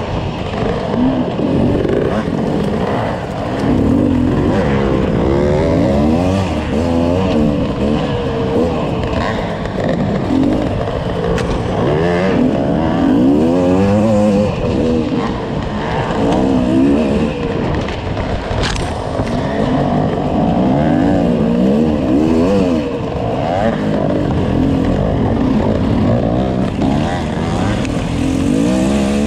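Off-road motorcycle engine revving hard and continuously, its pitch climbing and dropping every second or two as the throttle is worked.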